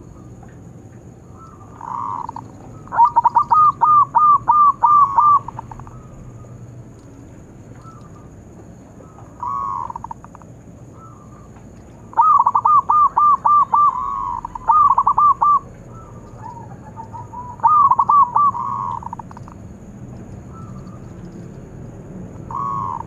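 Zebra dove (perkutut) cooing: three runs of quick, repeated bubbling coos, each lasting one and a half to three seconds, with short single coos between them.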